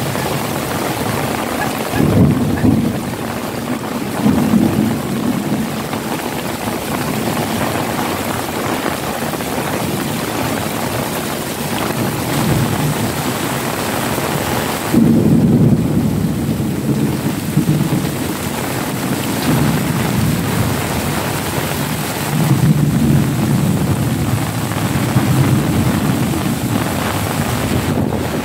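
Heavy rain hissing steadily, with low rolls of thunder swelling up several times: a few seconds in, about halfway through, and again near the end.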